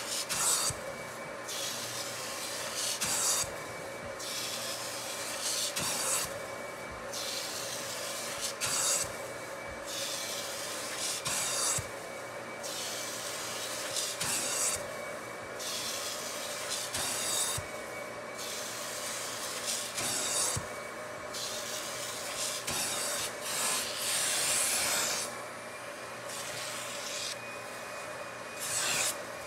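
An upholstery-cleaning extractor runs with a steady motor hum while its hand tool is drawn over sofa fabric in repeated strokes. Each pass brings a rushing hiss of spray and suction, about every two to three seconds, and the hiss breaks off between strokes as the tool pulls dirty water out of the upholstery.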